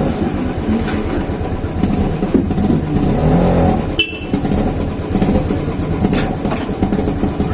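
A motor running steadily with a fast, even pulsing, and a short high beep about four seconds in.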